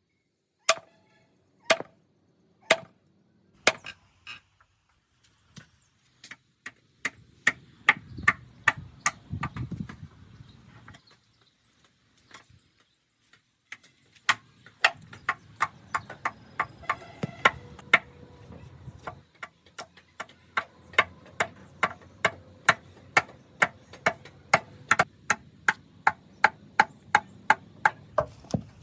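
A hand tool striking wood again and again in wheel-making work. The blows come about once a second at first, speed up to about two a second, stop briefly near the middle, then carry on at the faster pace.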